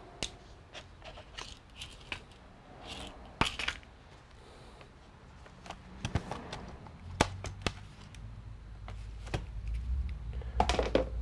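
Scattered small clicks, taps and short scrapes of hand tools and small parts being handled while a laptop is taken apart. A low hum sets in about seven seconds in and grows louder toward the end.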